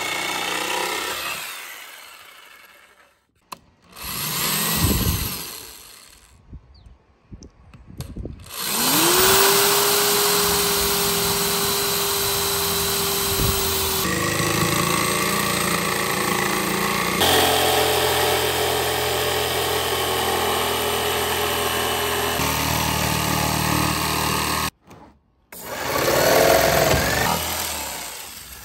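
A DeWalt corded jigsaw and an electric drill working plywood in several short bursts: motors spinning up, running steadily under load while sawing and boring through the board, and winding down. The longest run is steady for many seconds in the middle.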